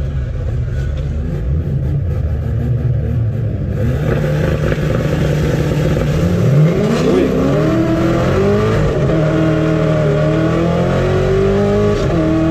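Corvette V8 heard from inside the cabin on a drag-strip run: a low steady rumble for the first few seconds, then full-throttle acceleration with the engine note climbing in pitch and dropping back at several gear changes.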